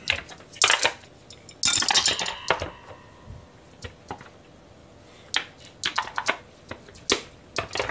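Kitchen clatter of plastic food containers, chopsticks and a plate being handled on a stainless-steel counter while food is served. A dense run of clattering knocks comes about two seconds in, leaving a short ringing. Scattered sharp clicks follow in the second half.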